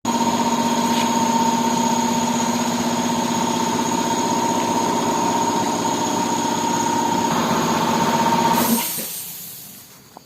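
An engine running steadily at a constant speed, then switched off about nine seconds in and fading out over about a second.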